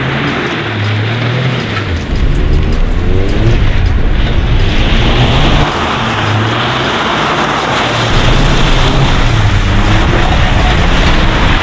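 Toyota GR Corolla's turbocharged three-cylinder engine revving up and down as the car slides around on dirt, with music playing underneath.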